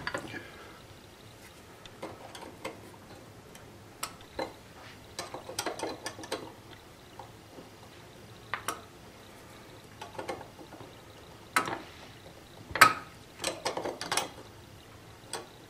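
Light, irregular metal clicks and taps from small steel parts of a lathe's chromed ball-crank handle being fitted by hand with pliers. The sharpest click comes about thirteen seconds in.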